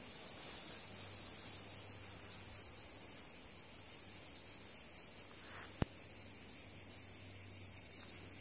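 Steady high-pitched chorus of insects chirring in dry summer grass and scrub, with one sharp click about six seconds in.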